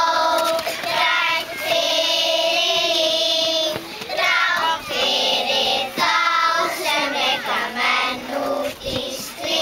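A choir of young children singing a song in Icelandic, in held notes with short breaks between phrases.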